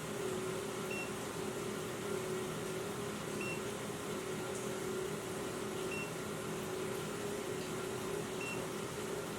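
Carbon monoxide detector giving a short, high electronic beep about every two and a half seconds, four times, over a steady hum.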